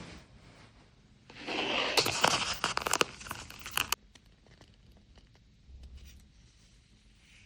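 Washi tape being peeled and torn: a crackling tearing sound lasting about two and a half seconds, stopping sharply, then a few faint ticks.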